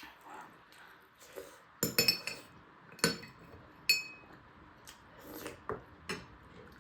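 Cutlery clinking against dishes: a quick cluster of clinks about two seconds in, then single clinks at about three and four seconds, each ringing briefly.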